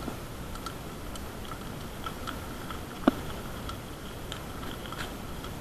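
Mountain bike being ridden over a rough village road: light irregular ticks and rattles over a steady rough hiss, with one sharper click about three seconds in. A faint steady high tone runs underneath.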